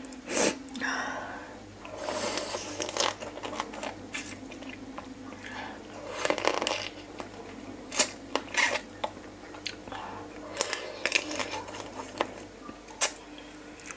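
Close-up mukbang eating sounds of raw blue swimming crab marinated in fish sauce: wet sucking and smacking as the meat is pulled from the shell with the mouth, with irregular sharp clicks and cracks of shell.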